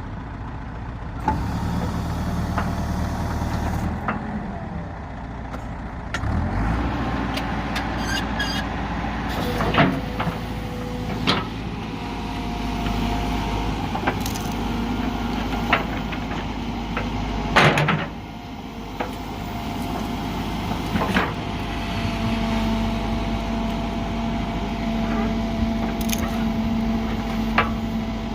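Backhoe loader's diesel engine running under changing load, with a steady whine and several sharp metallic clanks.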